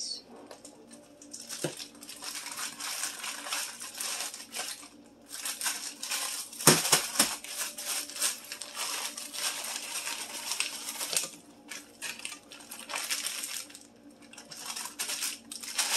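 Frozen mixed vegetables rattling in their plastic bag and clattering into a square copper-coloured nonstick frying pan, then being pushed around the pan by hand, with crinkling of the bag and one sharp knock about a third of the way in.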